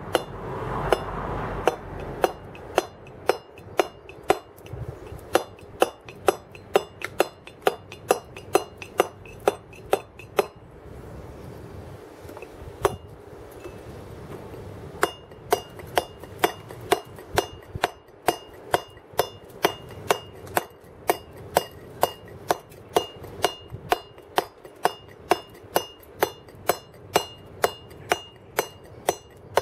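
Round wooden carver's mallet driving a steel chisel into a block of stone, about two blows a second, each with a short metallic clink. The blows pause for a few seconds near the middle, with one lone strike, then carry on steadily.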